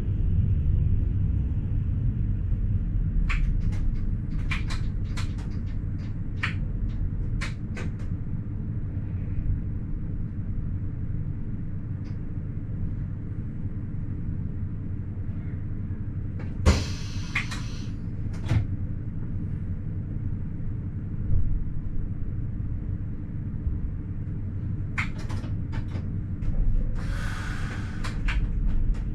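Running noise of a Wynental- und Suhrentalbahn ABe 4/12 'Saphir' metre-gauge electric railcar heard from the driver's cab: a steady low rumble with scattered clicks and knocks from the running gear. There are two short bursts of hiss, about 17 seconds in and again near the end.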